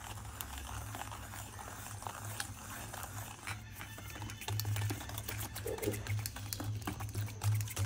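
Wire whisk beating a thin milky liquid in a steel bowl: quick, irregular clicks and scrapes of the wires against the metal.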